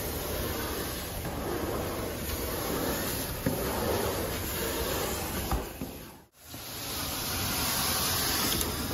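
Carpet extraction wand drawn across carpet: a steady rushing hiss of spray and vacuum suction pulling water back up the hose. The sound drops out for a moment just past six seconds in, then returns.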